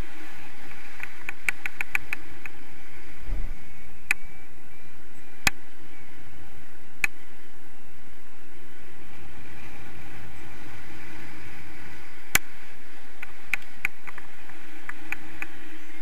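Steady rush of wind over the camera's microphone in paraglider flight, with a low buffeting thump a little over three seconds in. Sharp clicks come in a quick run early on and then singly now and then.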